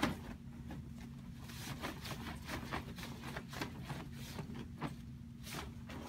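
Foley cape movement: a length of silky fabric and a black umbrella swished and flapped through the air, making a series of soft, quick whooshes and cloth flutters for a cartoon vampire's cape as he leaps.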